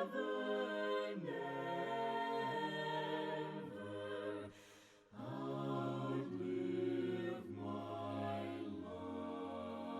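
Choir singing a hymn a cappella in slow, held chords with no instruments, pausing briefly about halfway through.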